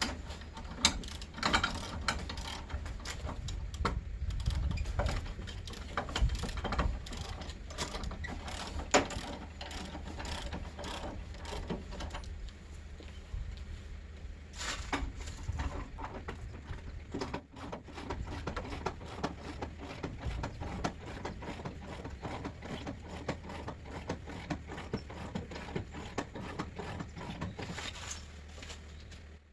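Camper jacks being worked to lift a truck camper off the truck bed: a mechanism clicking and ratcheting irregularly over a steady low hum.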